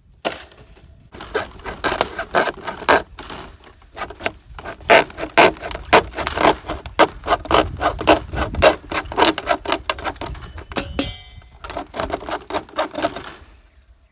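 A length of rain gutter being sawn through by hand to cut it to length, in steady back-and-forth rasping strokes, about two to three a second, with a short break near the end before a few more strokes.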